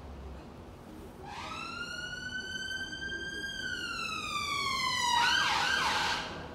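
Emergency vehicle siren, getting louder: one slow wail that rises, holds and falls over about four seconds, then switches to a fast warble near the end before cutting off.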